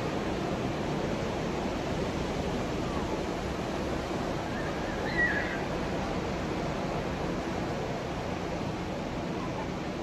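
Ocean surf breaking and washing up the beach: a steady, even rush of waves. About halfway through there is one short high chirp.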